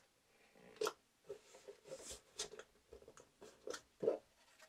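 Hands pressing and smoothing a sheet of cardstock onto double-faced tape on a small painted box: a faint string of short soft clicks, taps and rubs of paper.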